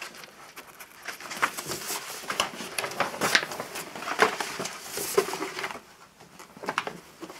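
Rolled paper posters rustling and crackling as they are unrolled and handled, a dense run of small crinkles that grows quieter near the end.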